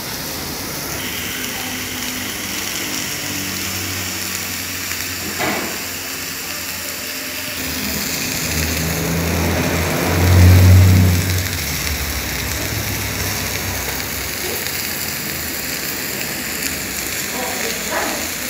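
Food sizzling as it fries, a steady hiss throughout. A low hum swells and fades about ten seconds in.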